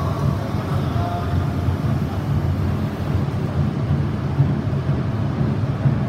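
E6 series Komachi shinkansen pulling out of the platform, its motors and wheels making a steady low rumble.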